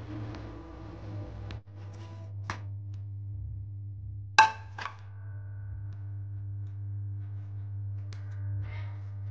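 Soft background music, with a few sharp clicks and knocks from the kitchen work; the loudest is a sharp clack about four and a half seconds in.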